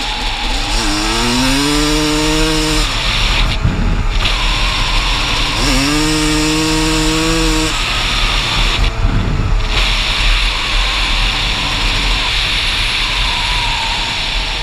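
Dirt bike engine revving twice, its pitch rising and then holding for a couple of seconds each time, over a steady rushing noise.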